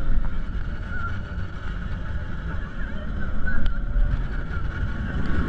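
Bolliger & Mabillard hyper coaster train running fast along its steel track, a steady loud rumble mixed with wind buffeting the on-board microphone.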